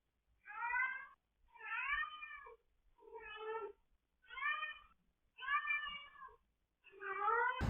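Domestic cat meowing repeatedly: six separate meows, each under a second long, about one a second.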